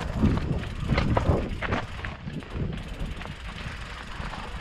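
Mountain bike riding over rocks: tyres and frame knock and clatter several times in the first two seconds, over a steady low rumble.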